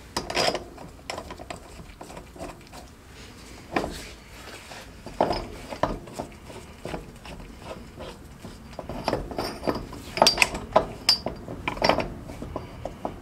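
Metal tools and parts clinking and knocking against each other as they are handled, in irregular strokes, with a cluster of louder clinks about ten to twelve seconds in.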